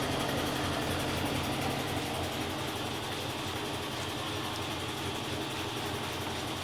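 GE top-loading washing machine running with a steady motor hum.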